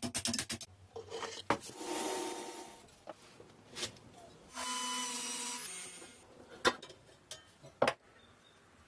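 Workshop restoration work: a rapid run of clicks, stretches of rubbing and scraping noise, and a few sharp knocks from hand and power tools on the truck's parts.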